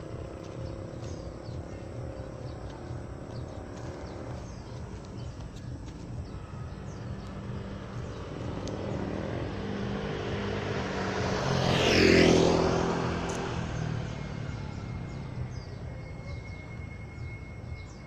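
Street background noise with a motor vehicle passing close by: it builds from about eight seconds in, is loudest around twelve seconds, then fades away.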